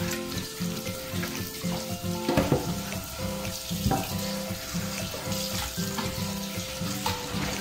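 Tap water running into a stainless steel sink and splashing over raw chicken pieces being rubbed clean by hand, under background music with a steady beat.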